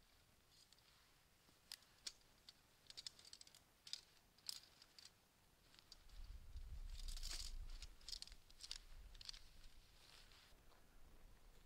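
Faint scattered clicks and short rustles over near silence, with a low rumble for about two seconds midway.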